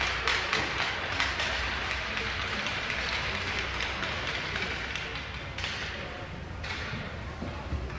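Applause and tapping: a dense patter of claps or taps that thins out over the first few seconds, with indistinct voices underneath.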